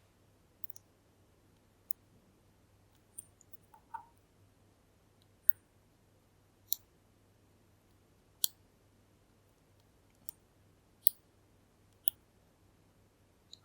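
Small, sharp metallic clicks, about a dozen at uneven intervals, as a pick works the pins of a Kale Kilit 10-pin dimple lock; clicks like these can be pins setting at the shear line.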